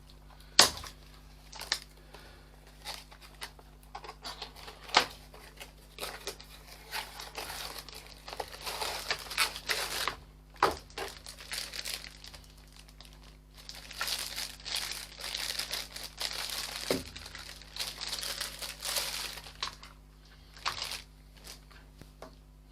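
Packaging being unwrapped by hand: crinkling and tearing, in longer stretches about a third of the way in and again past the middle, with scattered sharp clicks and knocks as the packed heat gun is handled.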